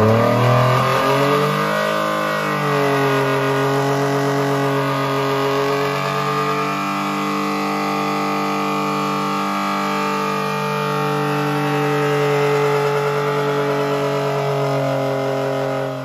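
Nissan 350Z V6 revved through its new aftermarket exhaust: a sharp rise, a brief dip and recovery, then a steady high rev held for about thirteen seconds before falling back near the end.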